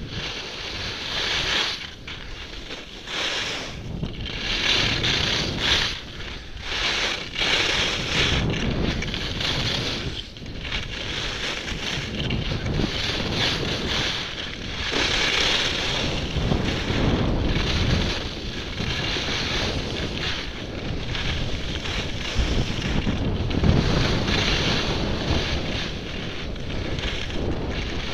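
Skis hissing and scraping over hard-packed snow through a run of turns, the scrape swelling and fading every couple of seconds, with wind buffeting the microphone underneath.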